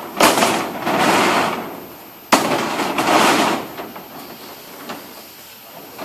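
Two sudden knocks, each followed by about a second and a half of noisy rush that dies away. The second comes about two seconds after the first.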